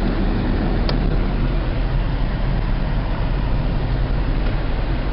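Steady engine and road noise inside a moving car's cabin: a low rumble under an even hiss.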